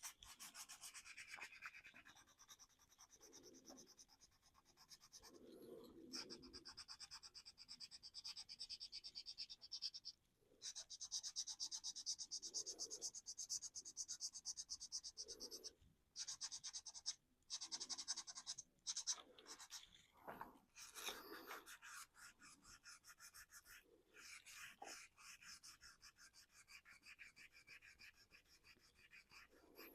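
Faint, rapid back-and-forth scrubbing strokes on the painted plastic of a 3D-printed RC car body, in spells broken by several short pauses.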